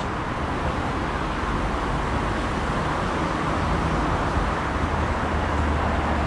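Steady road traffic noise: a continuous rush of passing vehicles over a low rumble, with no single event standing out.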